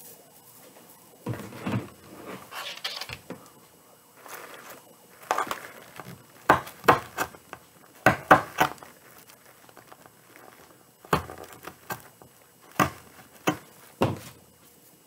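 Burlap and metallic deco mesh rustling and crinkling as they are handled and worked into a wreath, with a string of short, sharp knocks and taps.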